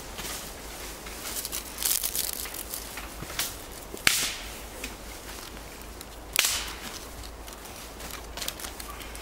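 Newly lit kindling fire of birch bark and small twigs crackling with irregular pops, while thin twigs are laid on by hand, giving a few louder snaps and rustles about two, four and six seconds in.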